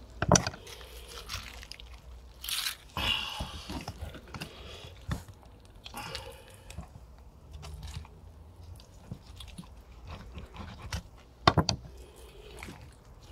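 A pig's head being boned out with a Mora knife and then pulled apart by hand: wet crunching and tearing of meat and cartilage, with a few sharp knocks, the loudest near the end.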